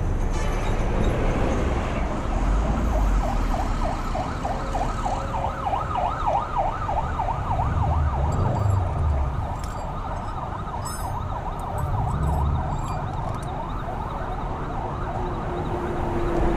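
Emergency vehicle siren in fast yelp mode, its pitch rising and falling about four times a second, from about half a second in until about nine seconds in, over the steady rumble of street traffic.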